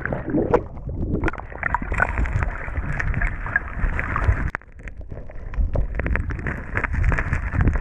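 Stream water heard from under the surface through a submerged camera: a muffled, steady rushing and bubbling, with many small clicks and knocks, dipping briefly about halfway through.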